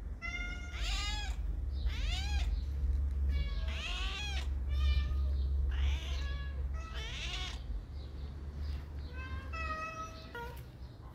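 Domestic cat meowing repeatedly, about six drawn-out meows, each rising and then falling in pitch, over a steady low rumble.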